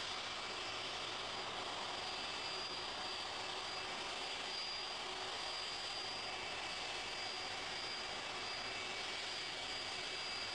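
Jet engines of a taxiing Boeing 747: a steady rushing noise with a high-pitched whine over it.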